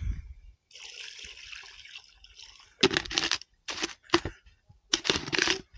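Salt-water brine being poured over sardines packed in a cool box: a steady pour for about two seconds, then several short separate gushes.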